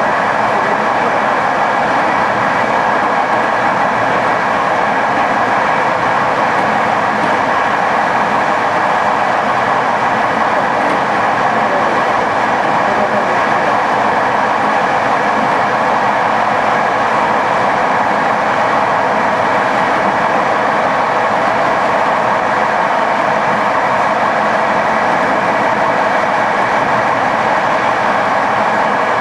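Passenger train running at a steady speed, heard from on board: a continuous, even rumble and rush of the wheels on the rails.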